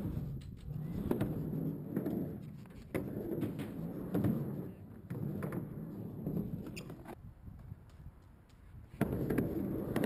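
Skateboard wheels rolling back and forth across a mini ramp: a low rumble that swells and fades with each pass, with sharp clicks from the board. The rumble dies down about eight seconds in and returns near the end.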